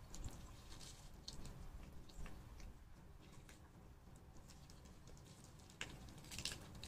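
Eating sounds from a roasted chicken leg held in plastic-gloved hands: scattered small wet clicks and crackles of the meat being torn and chewed, with a louder crackle about six seconds in.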